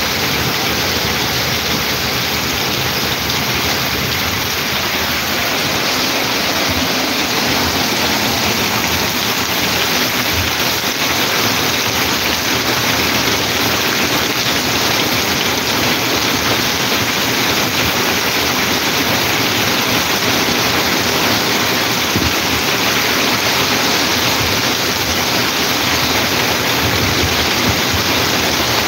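Heavy rain pouring down steadily, with rainwater running across the street surface.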